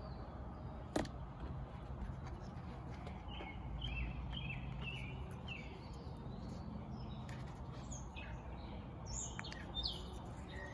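Birds chirping: a run of short, repeated chirps a few seconds in and more near the end, over steady outdoor background noise. A single sharp click sounds about a second in.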